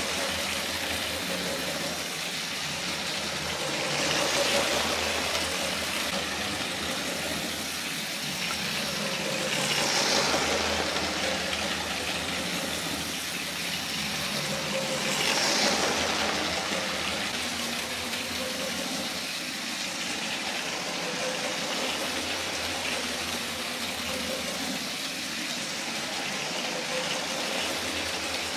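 LEGO Maersk train 10219 running on plastic LEGO track, driven by a Power Functions train motor: a steady motor whine over the rattle of wheels, swelling louder each time the train passes close, about every six seconds.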